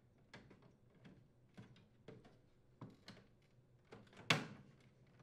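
Microwave vent grille being pressed into the top front of the cabinet: a run of faint clicks and taps as it is seated, with one louder snap about four seconds in as it locks into place.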